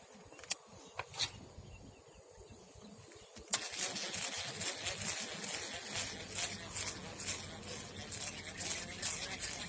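Footsteps rustling and crunching through dry vegetation. A few isolated clicks come first, then a sharp snap about three and a half seconds in, after which steady, irregular crackling rustle continues.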